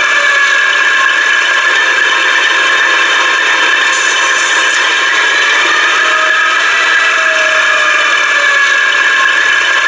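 Sound decoder in an H0 model BR 130 diesel locomotive playing a diesel engine running steadily at standstill through the model's small speaker. The sound is thin, without any deep rumble.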